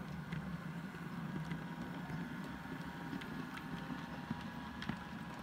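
Model electric locomotive running along the layout with a train of container wagons: a steady motor hum with scattered light clicks from the wheels on the track.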